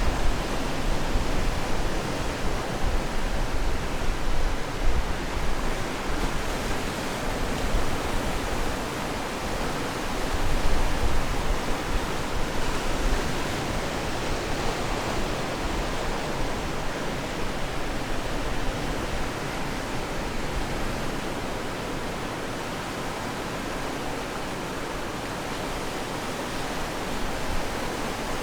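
Ocean waves washing on the shore: a steady rush of surf that swells gently now and then.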